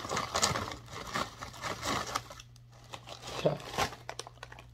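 Crinkling plastic potato chip bag as wavy potato chips are shaken out of it onto a paper towel. The rustling is busiest for the first two and a half seconds or so, then thins to scattered crinkles.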